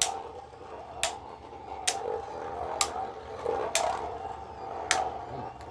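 Two spinning Beyblade tops whirring steadily in a plastic stadium, knocking together with a sharp click about once a second: light taps rather than hard hits.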